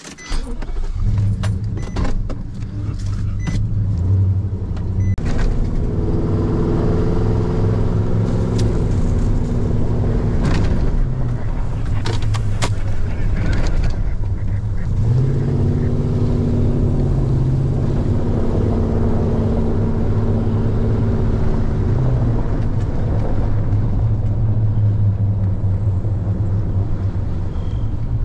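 Nissan Titan pickup's V8 engine starting about a second in and then running as the truck drives along a rough dirt track, heard from inside the cab; the engine note swells twice as it pulls, with scattered knocks and rattles from the cab.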